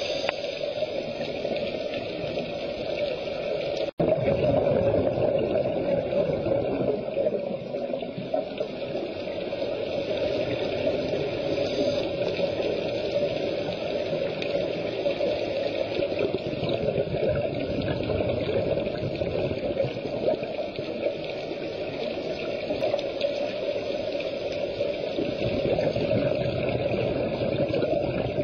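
Steady, muffled rush of water heard through an underwater camera housing on a dive, with a brief dropout about four seconds in.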